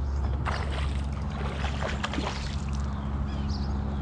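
A hooked bass splashing and thrashing at the water surface in irregular bursts as it is reeled in and lifted from the water, over a steady low hum.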